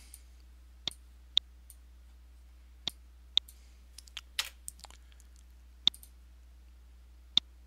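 Computer mouse buttons clicking: a series of sharp, separate clicks, roughly one every second or so, with a few close together around the middle.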